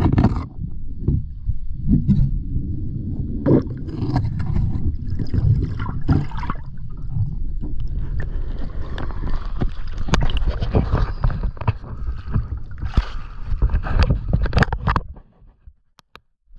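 Muffled rushing and gurgling of water on an underwater camera, with scattered knocks and clicks, dropping almost to silence about fifteen seconds in.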